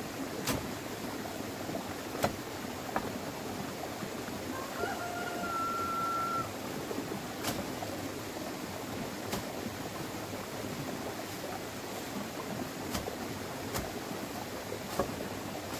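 Outdoor ambience: a steady rushing noise like running water, with scattered sharp clicks and knocks. A brief steady whistle-like tone sounds for about a second and a half, about five seconds in.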